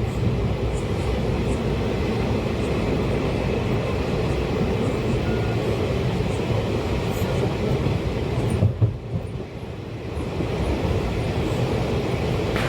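Passenger train running along the track, heard from aboard: a steady rumble of wheels on rails. About nine seconds in, after two sharp knocks, the sound briefly goes quieter and duller, then comes back.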